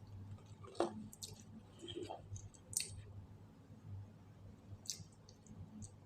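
A few faint, scattered clicks and small handling or mouth noises over a low steady hum.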